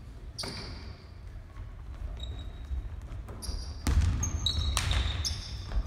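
Basketball bouncing on a hardwood gym floor, several hollow thuds that pick up about four seconds in, with sneakers squeaking on the boards in a large echoing hall.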